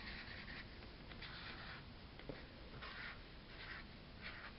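Felt-tip marker drawing on paper in a run of short, faint scratchy strokes, about five of them, as shingles are sketched in. A small tick a little past halfway.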